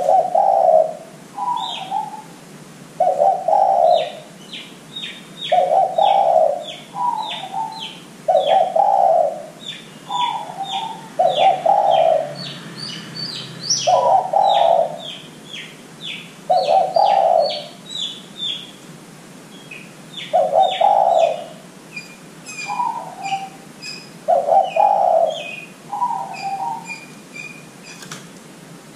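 Spotted dove cooing in repeated two-part phrases, a low coo then a slightly higher falling note, every two seconds or so. A steady run of short, high, sharp chirps from small birds goes on behind it.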